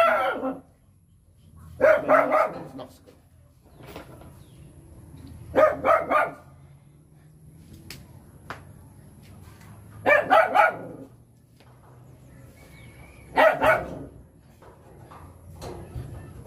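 A dog barking in repeated bouts of two or three barks, one bout every three to four seconds.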